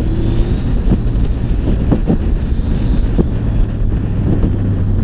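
Wind rushing over the microphone of a motorcycle at cruising speed, the loudest sound, with the Yamaha XSR900's inline three-cylinder engine running steadily underneath.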